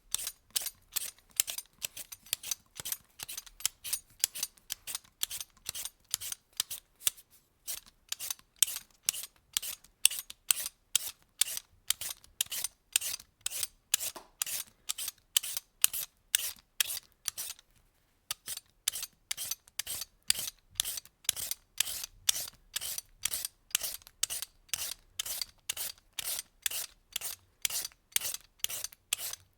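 Vegetable peeler scraping strips of peel off food in quick, even strokes, about two to three a second, with a couple of brief pauses.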